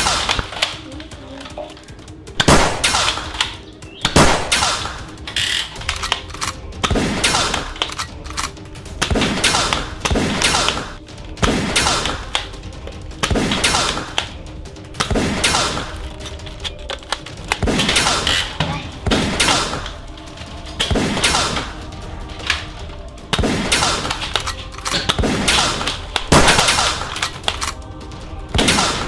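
Background music with repeated bursts of rapid toy-blaster gunfire, a burst every second or two.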